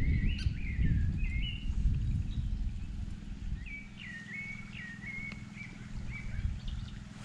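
A small songbird singing two phrases of short, stepping chirp notes, over a low rumble that is strongest in the first three seconds.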